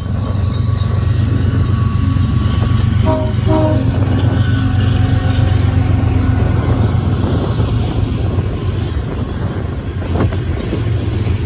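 Union Pacific diesel locomotive running hard as it accelerates past, with a brief horn sound about three seconds in, then the coal train's cars rolling by with occasional clanks from the wheels and couplers.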